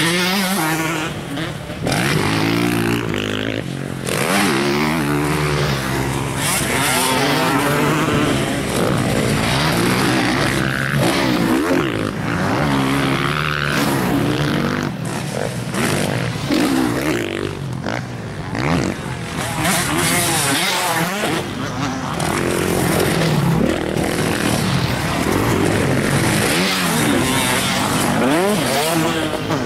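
Motocross dirt bikes racing past, their engines revving hard and dropping back as they shift and brake, the pitch rising and falling again and again with several bikes often heard at once.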